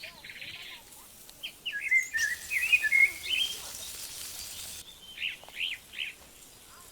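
Wild birds chirping and singing in short, repeated phrases. A steady hiss starts abruptly about two seconds in and cuts off a little before five seconds.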